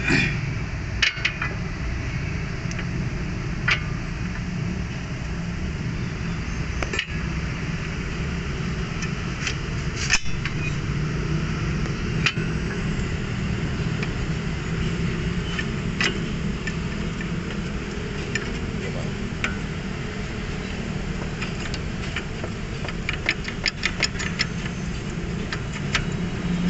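Hand tools clicking and clinking on metal during front shock absorber work, with a run of quick ratchet-like clicks near the end, over a steady low hum.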